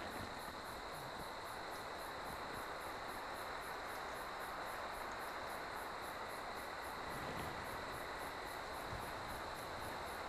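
Insects, such as crickets, chirping steadily in a regular high pulse of about four a second, over an even hiss.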